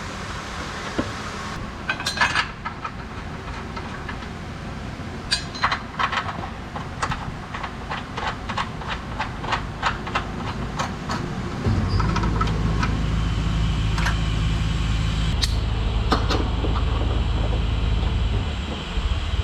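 Sharp metallic clicks and clinks of hand tools, some in quick runs, then a steady low motor hum for about seven seconds that stops near the end.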